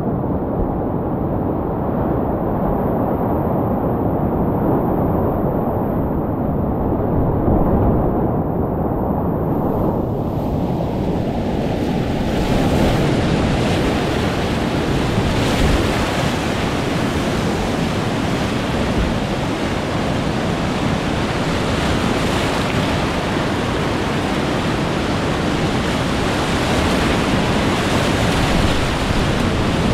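Whitewater of a steep creek rushing steadily over rapids. It is muffled for the first ten seconds or so, then turns bright and hissing.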